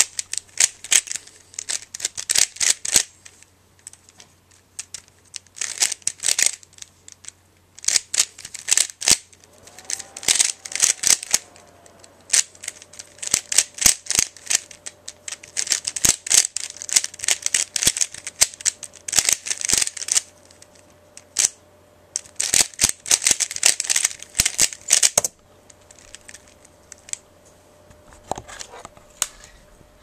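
A 3x3x3 Rubik's cube being turned fast in a timed speedsolve: rapid plastic clicking and clattering of the layers, in bursts with short pauses between them. The turning stops about 25 seconds in, leaving only a few faint clicks.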